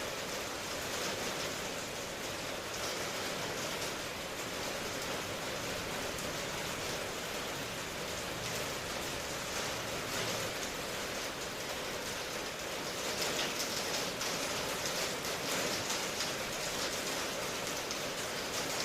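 Steady rain falling, an even hiss that swells slightly in its upper range past the middle.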